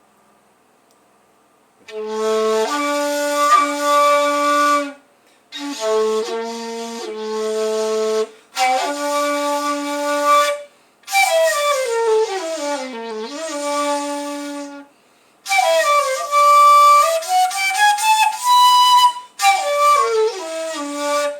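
A 2.4 shakuhachi in the key of A, a seven-hole end-blown flute with a coated inner bore, played in five phrases of held low notes with plenty of breath noise, starting about two seconds in. The phrases are separated by short pauses and include long pitch bends, one sliding steadily downward in the middle and others sliding down and back up near the end.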